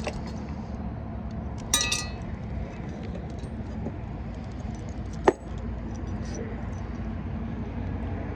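Small metal lock hardware being handled: a bright ringing clink about two seconds in and a single sharp metallic snap a few seconds later, over a steady low hum.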